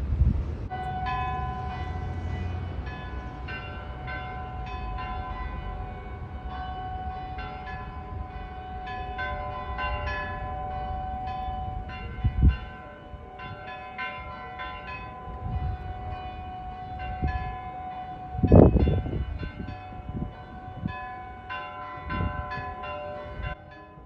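Church bells pealing from a bell tower: several bells struck over and over, their ringing tones overlapping. Wind rumbles on the microphone underneath, with two louder low thumps, one about twelve seconds in and one near eighteen seconds.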